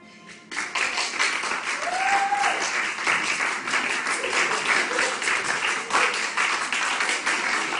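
Crowd clapping and cheering, breaking out suddenly about half a second in as a held musical chord ends. One voice whoops about two seconds in.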